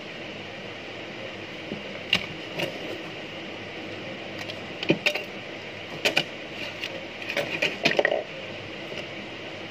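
Light clicks and taps of a mobile phone's circuit board and metal tweezers being handled and set down on a workbench, scattered from about two seconds in until about eight seconds, over a steady background hiss.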